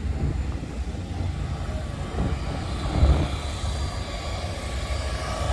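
Steady low rumble of a vehicle driving slowly, heard from inside, with a brief swell about three seconds in.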